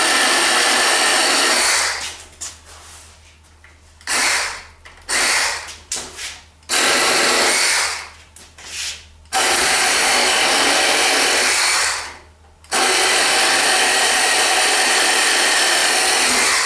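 A small battery-powered hacksaw with a fresh blade cutting through a cedar limb, cutting easily. The motor and blade run in about six bursts of one to four seconds, with short pauses between them.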